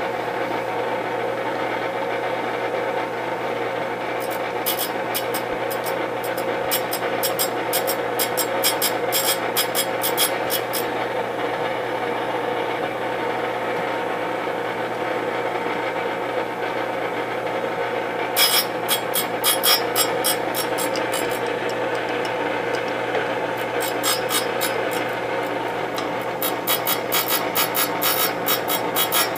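Delta Rockwell surface grinder running with a steady motor and wheel hum, its wheel grinding a small metal part in passes that add a rapid rasping grind. The grind comes about four seconds in until about eleven seconds, again briefly around eighteen seconds, and from about twenty-four seconds to the end.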